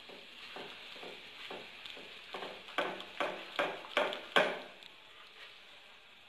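A hand kneading and mixing a soft, oily chocolate cookie batter in a glazed clay bowl: wet squelching strokes that grow into a quick run of about six louder slaps between two and four and a half seconds in.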